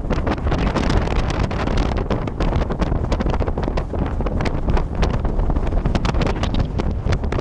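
Wind buffeting the microphone aboard a moving boat: a steady rumbling rush broken by rapid, irregular gusts.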